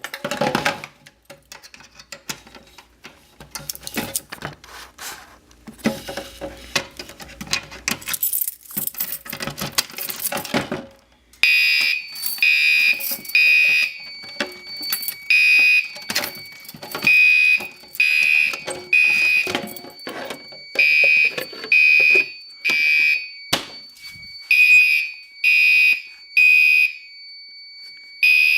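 Clicking and clattering for about eleven seconds, then a home-collection fire alarm system goes into alarm: its horns sound in loud, high-pitched pulses of about half a second, with short pauses between groups, over a thin steady high tone.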